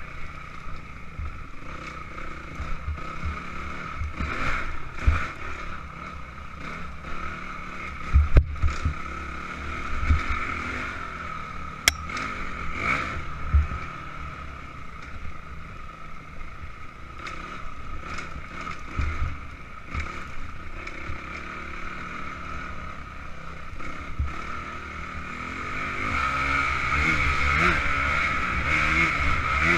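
Honda CRF250X four-stroke single-cylinder dirt-bike engine running under throttle on a rough trail, with dull knocks from the bike going over bumps. The engine gets louder about four seconds before the end.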